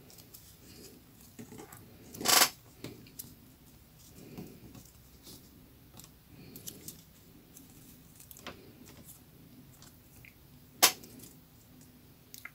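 Rolled newspaper tubes rustling and crackling in the hands as they are wound tightly around a stem, with two sharper crackles, one about two seconds in and a louder one near the end.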